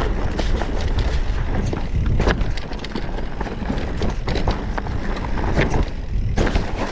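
Electric mountain bike riding down a rough trail over drops: steady wind rumble on the action-camera microphone, with frequent knocks, clicks and rattles from the bike over the ground.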